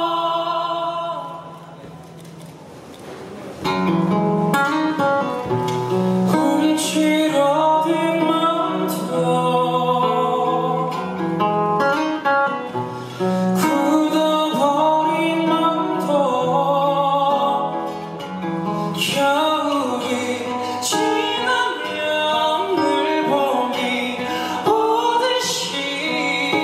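A male vocalist sings live into a handheld microphone over instrumental accompaniment, holding long notes. The music drops to a brief quiet pause about two seconds in, then the voice comes back in.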